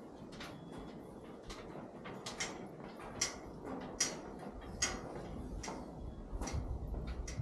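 Footsteps on the steel grated deck of a forest suspension bridge: sharp metallic ticks about one a second, with a low rumble joining in about halfway.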